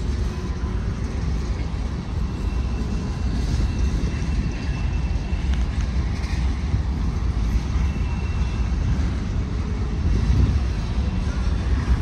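Freight train cars rolling past: a steady low rumble of steel wheels on the rails, with a faint high wheel squeal a couple of times. The wheels are a little loud.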